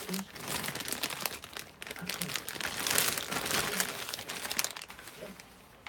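Packaging crinkling and rustling as items are unpacked and handled, loudest around the middle and fading near the end.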